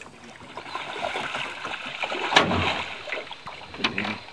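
Water splashing and sloshing by a small fishing boat, with one sharper hit about two seconds in.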